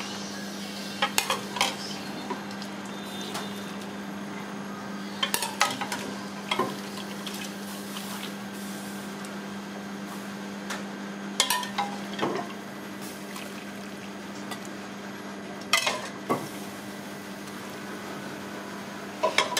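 Steel ladle clanking against the rims of a stockpot and a stainless steel pan as broth is ladled across, a few clinks together every four or five seconds. A steady low hum runs underneath.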